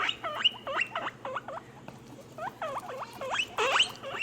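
Guinea pig squeaking: a quick series of short, high squeaks, each falling sharply in pitch, about three a second, with a brief pause about halfway through.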